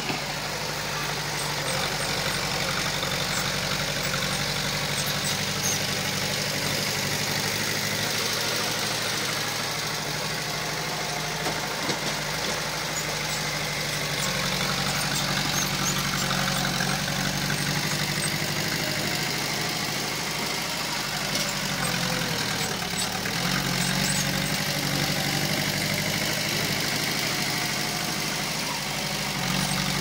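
Heavy-equipment diesel engine running steadily at a low, even pitch, which sags briefly about two-thirds of the way through and then recovers.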